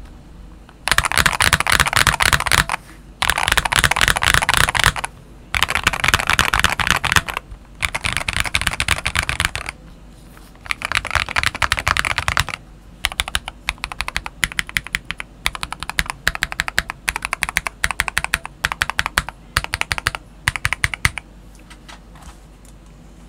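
Typing on a modded Eyooso K620 tenkeyless mechanical keyboard with lubed Akko Rose Red linear switches and YMDK OEM-profile PBT keycaps, its case dampened with bike weights, a silicone pour and a tape mod. Fast runs of keystrokes a second or two long with short pauses between them, turning to sparser, separate keystrokes in the second half and stopping shortly before the end.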